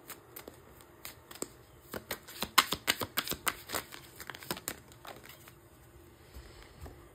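A deck of oracle cards being shuffled by hand: a quick run of sharp papery clicks and flicks, thickest and loudest from about two to four and a half seconds in, then a few scattered ones.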